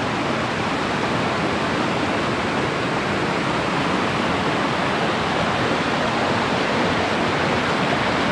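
Small waterfall rushing steadily, water spilling over a beaver dam.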